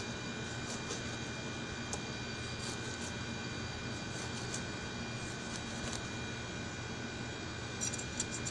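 Steady background hum with a few faint scraping clicks from a cleaver scaling a fish on a plastic cutting board, a short cluster of them near the end.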